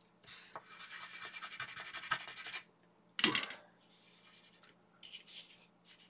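Pastel stick rubbing on construction paper in quick back-and-forth strokes, shading in brown, in two runs broken by a short, louder knock about three seconds in.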